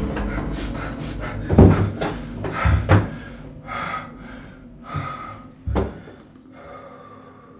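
Four heavy thuds against a wooden door, the first about a second and a half in, two close together near three seconds, the last near six seconds. Between them a man breathes hard.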